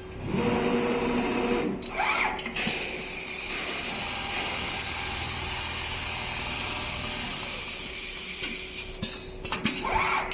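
An automatic large-panel sewing machine running. A steady high hiss with a low hum lasts several seconds, after a shorter humming sound about half a second in.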